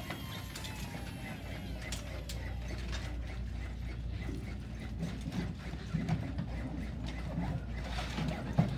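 LUCAS mechanical chest-compression device running on a manikin, its motor and piston making a steady mechanical whirring and clattering as it delivers automated CPR compressions.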